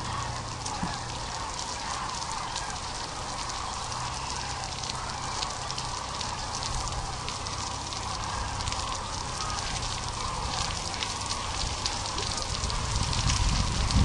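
Steady rain, a dense patter of small drops over an even hiss, with a low rumble building near the end.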